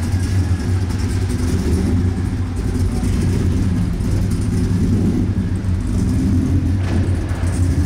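The 1985 Chevrolet C10's LT1 V8 engine running steadily with a deep, even note.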